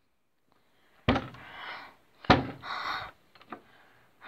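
Two knocks about a second apart, each followed by a brief scraping rustle, then a few faint clicks.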